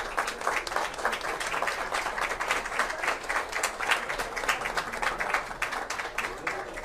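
A small crowd clapping steadily, many hands at once.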